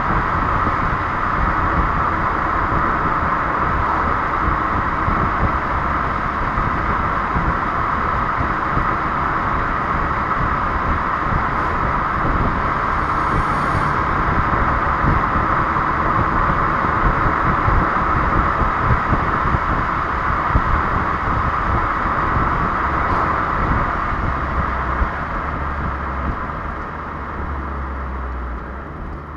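Renault Clio 1.3 TCe 130 on the move: a steady rush of road and engine noise that eases off and gets quieter over the last few seconds.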